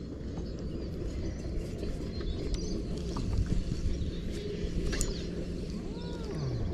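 Outdoor ambience: a steady low rumble with a few faint bird chirps, one small arching call near the end.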